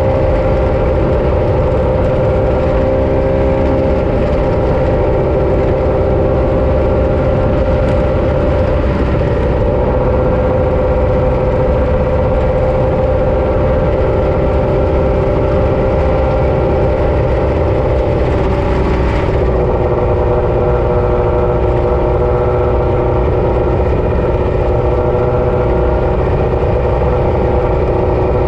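Off-road race vehicle's engine running at a steady pitch over a continuous heavy low rumble; the pitch drops slightly about two-thirds of the way through.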